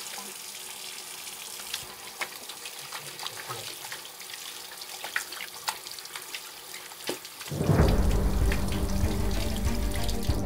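Steady hiss of running water with small splashes and drips. Music comes in about seven and a half seconds in.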